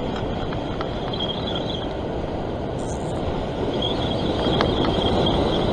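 Wind buffeting the microphone over breaking ocean surf: a steady rumbling rush, with a faint high whir twice.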